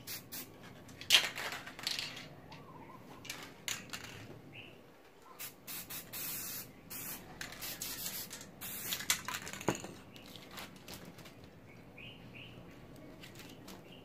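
Aerosol spray paint can hissing in many short bursts, with longer sprays in the middle and fainter, shorter ones near the end.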